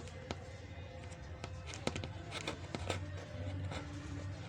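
Scattered light clicks and taps from small parts being handled on a workbench, over a steady low hum and faint background music.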